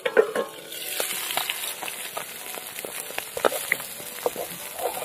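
Pieces of bhola fish frying in hot oil in a metal karahi: a steady sizzle that grows about a second in, broken by sharp clicks and scrapes of a metal spatula against the pan.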